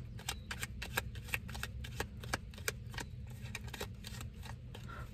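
Tarot cards being shuffled by hand: a run of irregular soft clicks and flicks, several a second, over a steady low hum.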